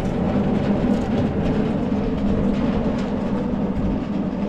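Salt spreader's conveyor chain and spinner running together on a test, both working: a steady mechanical clatter over a low hum.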